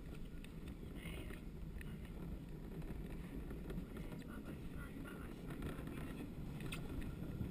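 Luge cart wheels rolling on a concrete track: a steady low rumble with scattered small rattles, growing slightly louder as the cart picks up speed, with wind buffeting the microphone.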